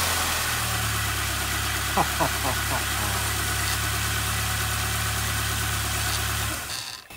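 Peugeot 206's 1.4-litre TU3 8-valve petrol engine idling steadily on its first run after a cylinder head rebuild. It stops about six and a half seconds in.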